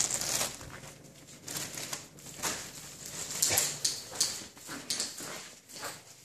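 Siberian husky puppy playing with a mylar foil balloon: a run of short, irregular rustling and scuffling bursts, with small puppy noises among them.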